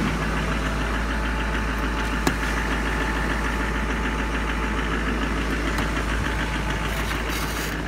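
LMM Duramax 6.6-litre V8 turbo-diesel idling steadily, cold-soaked after a start at about 25 below zero that barely let the glow plugs warm up. A single sharp click comes about two seconds in.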